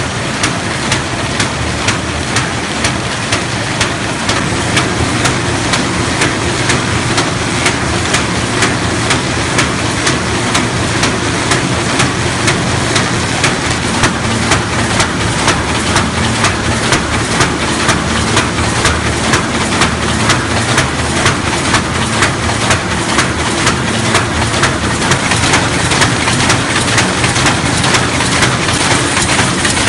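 Roll-fed paper bag making machine running at speed: a steady mechanical din with a regular clatter repeating several times a second as it forms kraft paper bags.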